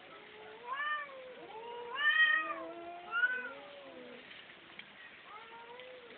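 Cat meowing: three rising-and-falling meows in the first few seconds, the middle one loudest, with softer, lower meows between them and another soft one near the end.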